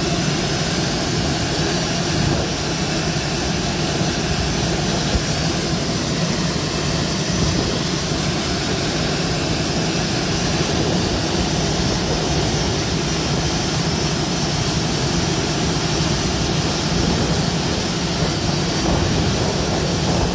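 Rolls-Royce turbofan jet engine running steadily during a ground run after a borescope inspection: a loud, even rushing noise with a low hum underneath, unchanging throughout.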